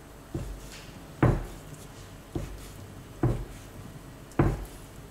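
Kitchen knife chopping down through raw pork slices onto a wooden cutting board while scoring them: five dull knocks about a second apart.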